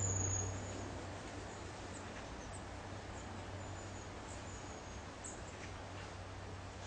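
Thin, very high-pitched chirps of a small bird: a longer, slightly falling call at the start, then short chirps about every half second to second, over a low steady hum.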